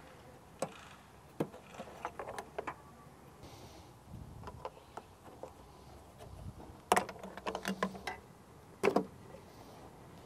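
Scattered plastic clicks, knocks and rattles from wiring-harness connectors being unplugged from a Toyota Tacoma headlight assembly. The loudest handling comes in a cluster around seven seconds in and again near nine seconds.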